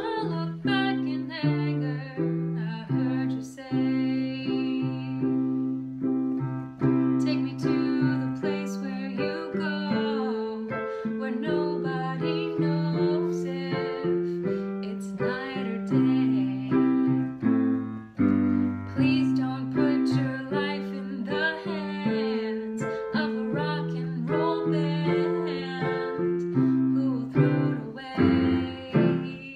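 Instrumental passage of a pop song played live at home: a keyboard carries the melody over steady chords, with no sung words.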